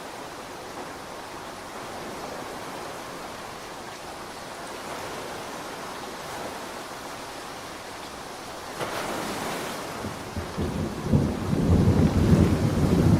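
Steady rain, then thunder: a sudden crack about nine seconds in, followed by a low rumble that builds and is loudest near the end.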